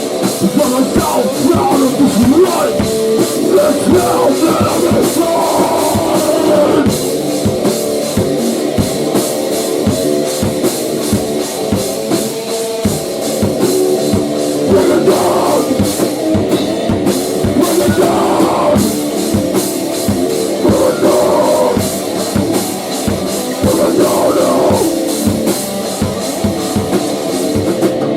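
Rock band playing a heavy grunge-hardcore song, the drum kit striking a steady, busy beat under the guitars.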